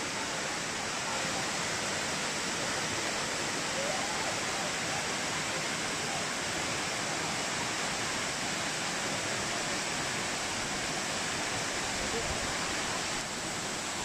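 Waterfall rushing: a steady, even hiss of falling water.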